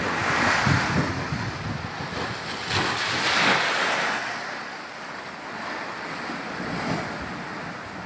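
Rough storm waves surging and splashing under and against houses on wooden stilts, with wind buffeting the microphone. The rush of water swells twice, near the start and again about three seconds in, then eases off.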